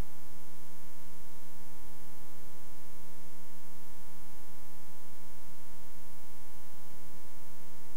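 Steady electrical mains hum: a low buzz with a ladder of higher overtones, holding one pitch without change.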